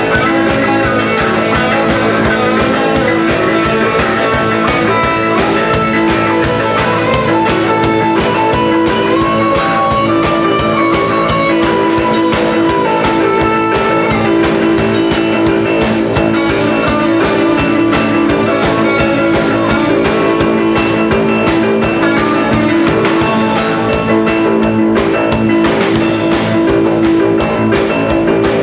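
Rock band playing an instrumental passage: a guitar melody over sustained chords and a drum kit, loud and steady.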